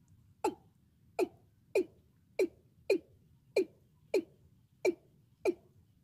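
Caged decoy watercock (cúm núm) giving its repeated territorial call: nine short notes, each dropping in pitch, evenly spaced at about one and a half a second.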